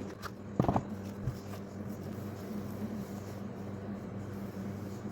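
Packaging being handled while a laptop is unboxed: two short scraping taps in the first second, then faint rustling over a steady low hum.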